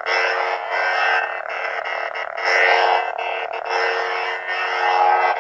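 Crimson Moon lightsaber replica's sound board playing a steady electric blade hum through its built-in speaker, swelling into swing sounds as the lit blade is moved, strongest about two and a half seconds in.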